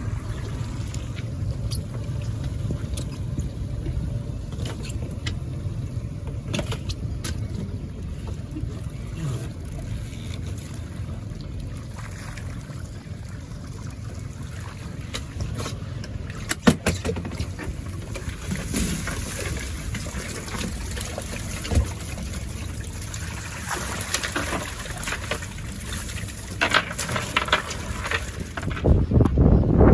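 A steady low rumble of a boat on the water, with a few sharp knocks.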